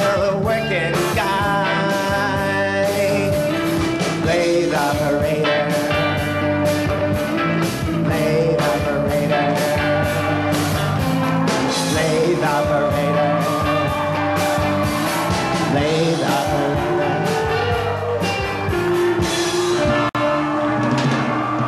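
Band music with a steady drum beat and a lead line that slides up and down in pitch.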